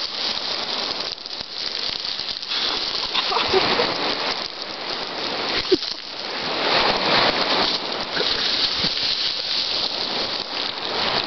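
Beach pebbles shifting and clattering as a person buried under them sits up and pushes free, a dense rattling of many small stones that swells and fades as she moves.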